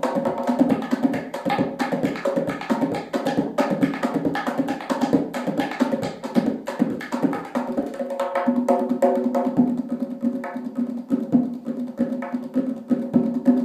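Tonbak, the Persian goblet drum, played solo in a fast, unbroken stream of finger strokes and rolls with a pitched drum tone under them.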